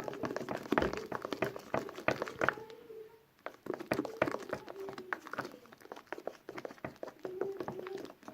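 Sticky homemade slime being stirred and worked by hand, a run of irregular wet clicks and pops with a brief pause about three seconds in. The mixture is still runny and not coming together.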